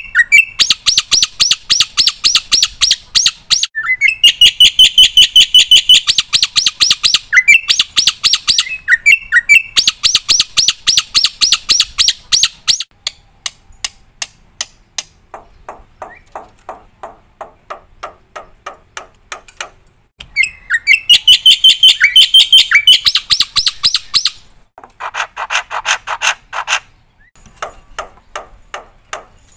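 Black-winged myna (jalak putih) singing vigorously: loud trains of rapid, repeated chattering notes, about eight to ten a second, in phrases broken by short pauses, with a lower-pitched run near the end.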